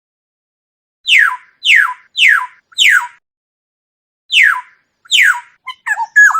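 Oriole calling: starting about a second in, a run of loud notes that each slide steeply down in pitch, four in quick succession and two more after a short pause, then shorter wavering notes near the end.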